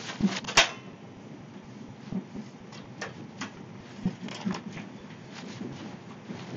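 Phone microphone handling noise: a sharp knock about half a second in, then scattered light taps and rubs, over the steady low rumble of a train carriage.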